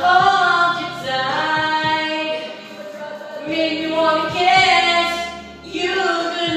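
A singer singing slow, long held notes into a handheld microphone, in three phrases with short breaks between them.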